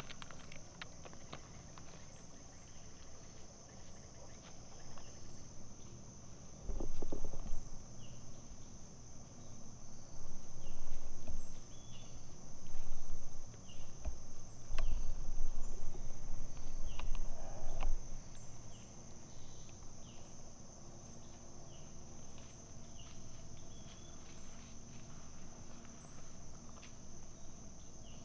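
Steady high-pitched insect chorus with scattered short chirps. From about seven to eighteen seconds in, several bursts of low rumbling noise on the microphone are the loudest sound.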